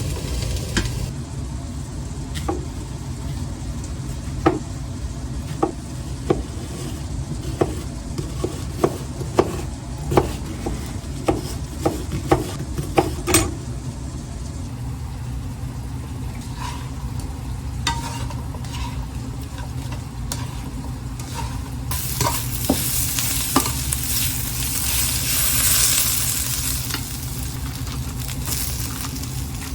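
Food frying in a pan while being stirred: a dozen or so sharp knocks of a utensil against the pan in the first half over a steady low rumble, then a louder hiss of sizzling for about five seconds near the end.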